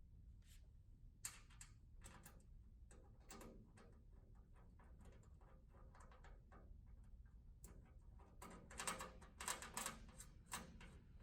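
Faint, irregular clicks and light metallic taps of parts being handled while the brush post is fitted to a stainless steel tabletop, with a quick run of louder clicks near the end.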